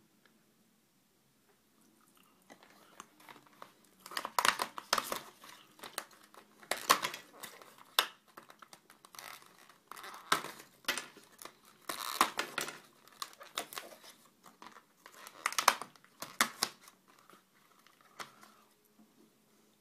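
Packaging crinkling and crackling as it is handled and torn, in irregular bursts that begin a few seconds in and die away a few seconds before the end.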